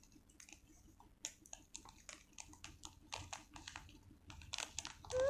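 Small foil and plastic seasoning sachets crinkling as they are torn open and squeezed out over an instant noodle cup: a string of quick, irregular crackles and ticks. A voice starts a long held sound right at the end.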